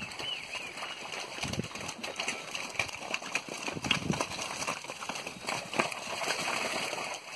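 Hooves of calves trotting across a muddy corral, a run of irregular thuds and knocks.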